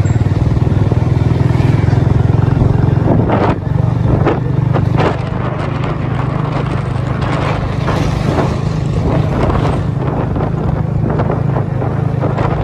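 Motorcycle running under way, a loud steady low drone that eases off slightly about five seconds in.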